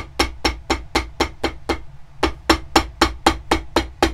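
Shoemaker's hammer tapping on the stitched leather of a boot upper in quick, even strokes, about four a second, with a brief pause about two seconds in. The hammering flattens the new stitches and closes the needle holes in the leather.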